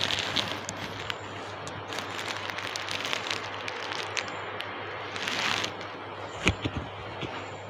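Handling noise from a clip-on microphone being fiddled with: rustling and crackling with scattered small clicks, a brief hiss about five and a half seconds in and a sharper click about a second later.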